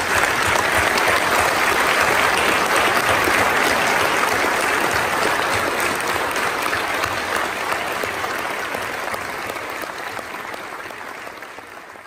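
Large audience applauding, loud and steady at first, then gradually dying down over the last few seconds.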